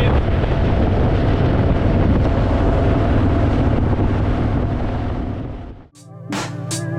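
Wind rushing over the microphone on top of a Harley-Davidson Fat Boy's V-twin engine running at highway speed. It fades out about six seconds in, and music starts.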